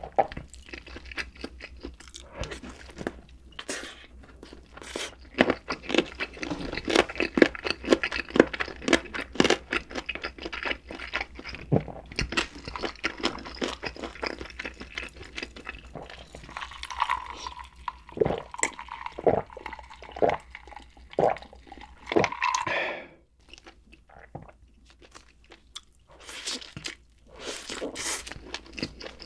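Close-miked eating sounds: a man biting, crunching and chewing food, with dense crisp crunches for most of the stretch and a short quiet pause about two-thirds of the way through.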